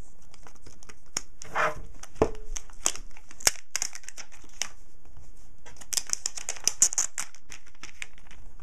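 Clear protective plastic film being peeled off a new tablet by hand, crinkling and crackling in irregular sharp clicks that are busiest about six to seven seconds in.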